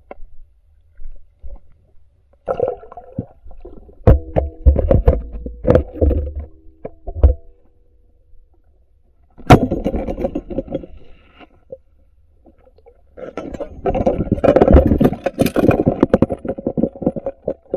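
Muffled underwater knocks, scrapes and rumbling from a submerged camera moving among rocks. Bursts of clunking come first, a single sharp crack about halfway through, then a longer stretch of rumbling near the end.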